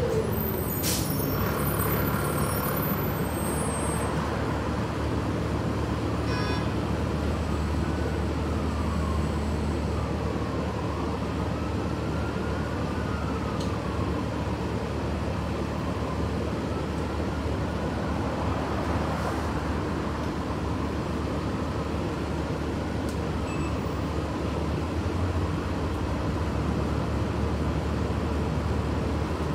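Inside a moving city transit bus: steady engine drone and road noise through the cabin, with a faint whine that rises and falls in pitch several times.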